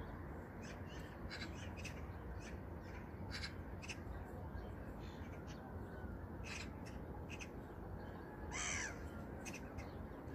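A flock of birds calling over the water: many short scattered calls, with one louder call near the end, over a steady low background hiss.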